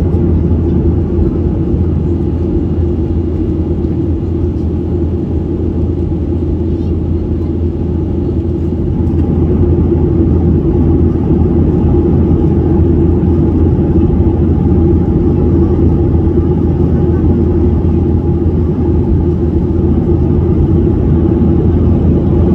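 Steady drone of a passenger airliner's cabin in flight: engine and airflow noise, a strong low hum with a mid-pitched tone above it, growing slightly louder about ten seconds in.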